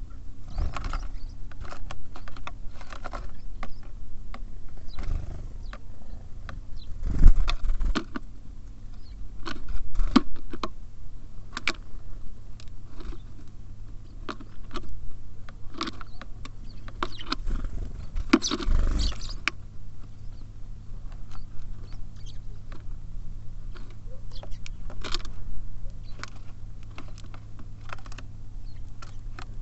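Tits and sparrows feeding at a bird feeder: scattered quick taps and clicks of pecking and hopping, with a few louder fluttering bursts, the loudest about 18 seconds in, over a steady low hum.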